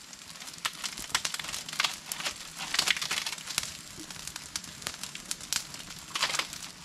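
Open fire of dry palm fronds crackling, with irregular sharp snaps and dry crinkling rustles.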